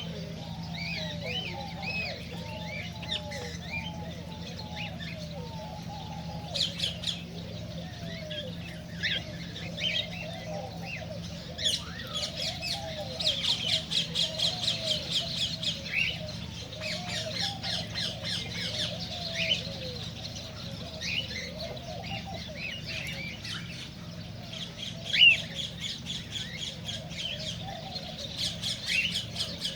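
Cockatiels chirping and squawking. Short calls overlap throughout, with a run of quick repeated calls partway through and one loud call near the end. A steady low hum sits underneath.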